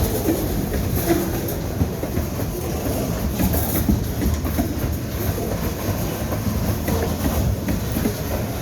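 Train cars rolling slowly past at about 10 mph, with a steady rumble and irregular clacking of the wheels.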